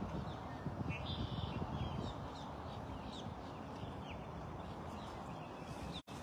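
Birds chirping against a steady outdoor background hiss: short, high, downward-sliding chirps every second or so, with a brief buzzy note about a second in. The sound cuts out for an instant near the end.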